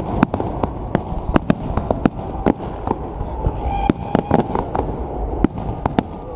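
Aerial fireworks shells bursting in the sky, many sharp bangs and crackles in quick, irregular succession over a continuous low rumble.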